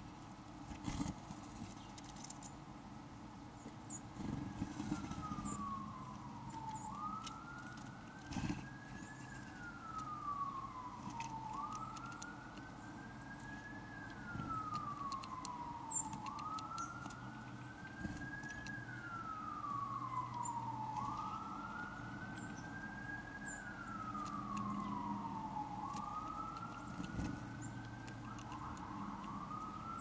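A siren wailing, its pitch slowly rising and then falling in a repeating cycle about every four to five seconds, starting a few seconds in.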